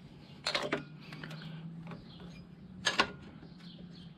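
Light metallic clicks and knocks of the telescoping pushrod cover tubes and pushrods on a Harley-Davidson Ironhead engine being handled and pushed up by hand: a few short clicks about half a second in and a sharper single knock about three seconds in.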